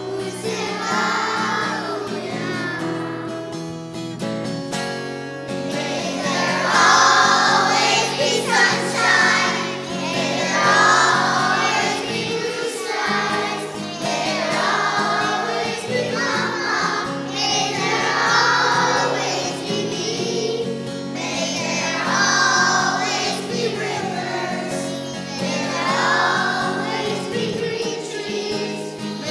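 A choir singing a song over steady instrumental accompaniment, in phrases of about two seconds each.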